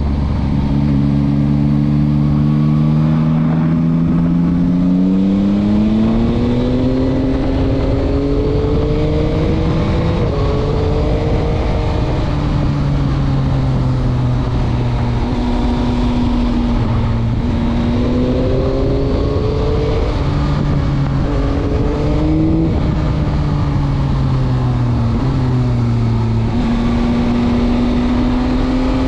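2021 Yamaha MT-09's 890 cc inline three-cylinder engine, heard from the rider's chest, pulling hard and easing off through a string of corners. The pitch climbs steadily for the first ten seconds or so, then rises and falls again and again, with several sudden drops in pitch along the way.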